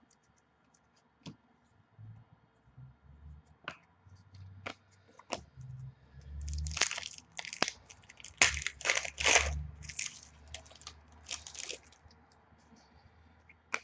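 Trading-card pack wrapper crinkling and tearing as it is opened, in a run of rustling bursts through the second half, after scattered light clicks of cards being handled.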